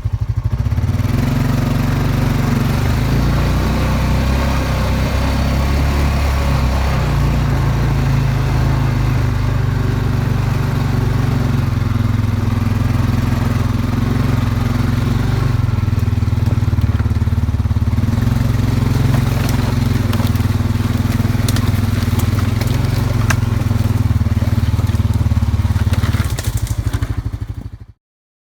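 An engine running steadily with a loud, low drone. It stops shortly before the end.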